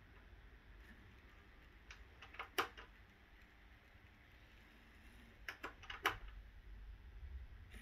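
Bachmann LMS 3F model steam locomotive running along the track, quiet, with sharp clicks in two clusters, about two and a half seconds in and again around five and a half to six seconds in.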